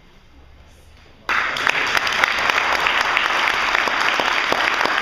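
A group clapping hands: applause that starts abruptly about a second in and runs on steadily, after a quiet stretch of faint room sound.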